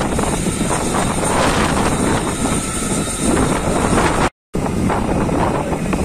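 Strong wind buffeting the microphone over the steady running of a fire truck's engine; the sound cuts out completely for a moment about four seconds in.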